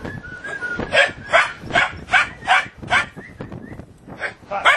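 Puppies yapping repeatedly in play: a high thin whine in the first second, then a run of short, sharp barks, about two or three a second, pausing briefly before two more near the end.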